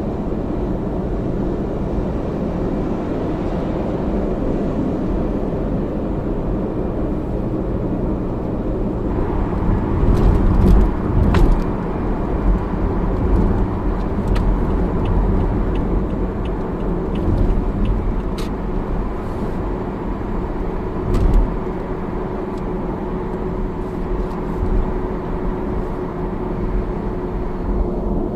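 Toyota Camry AVV50 on the move: steady running rumble with a constant hum that drops slightly in pitch near the end, and a few sharp knocks in the middle. The abnormal noise comes from the left front and is hard to pick out; it is the sign of an age-worn bearing at the driveshaft.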